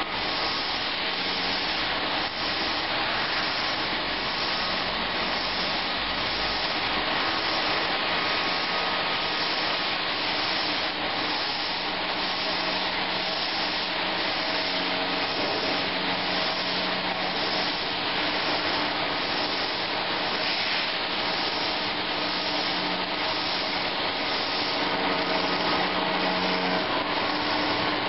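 A water-cooled finishing tool on a five-axis CNC bridge machine grinding a stone statue blank as the lathe turns it: a steady grinding hiss with a faint, even machine hum under it.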